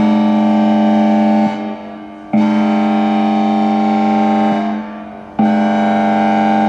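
Whelen WPS-3000 electronic outdoor warning siren sounding its air horn signal. It gives repeated steady, single-pitched horn blasts about two seconds long, one roughly every three seconds. Each blast cuts off and trails away briefly before the next.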